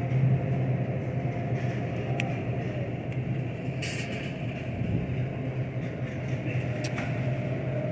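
Shopping cart rolling along a supermarket floor, a steady rumble over the low hum of the refrigerated meat cases, with a few light clicks and rattles.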